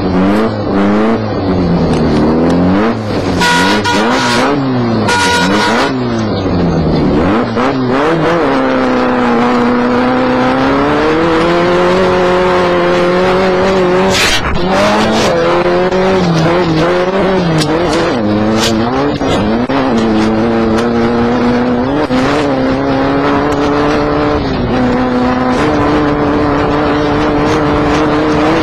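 Desert race car's engine heard from inside the cockpit, revs rising and falling quickly for the first several seconds, then running smoother with the pitch stepping up and down as the damaged car is driven gently. Two short high beeps sound about four and five seconds in, and there are a few brief knocks.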